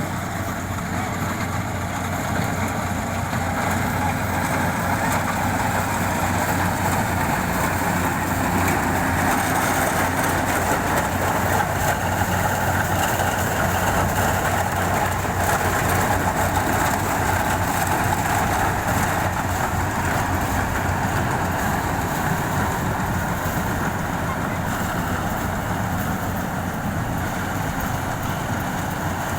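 Rice harvesting machine's engine running steadily under work, with a constant mechanical whirr that swells slightly in the middle.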